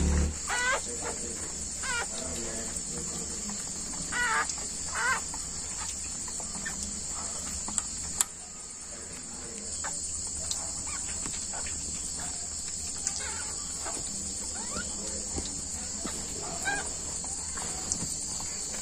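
Newborn puppies giving a few short, high, rising squeaks, over a steady high-pitched chirring of insects; a single sharp click about eight seconds in.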